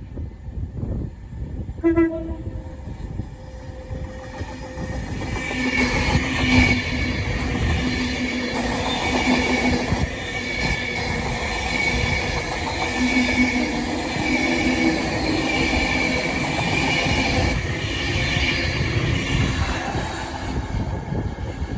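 A train's horn gives a short toot about two seconds in, then a train passes close by for most of the rest, a steady rail rumble with a whine that comes and goes.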